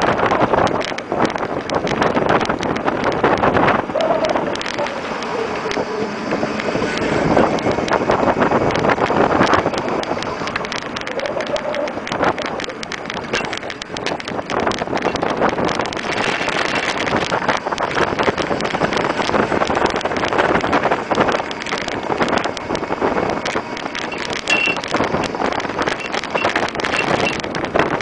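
Wind buffeting the microphone while riding, with rattling and road noise; no clear horn note stands out.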